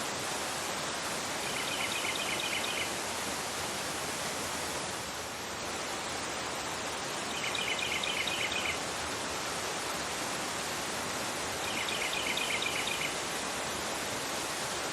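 A fast river rushing over a rocky bed, a steady full-range noise of water. A bird sings a short, quick series of high notes three times, about every five seconds.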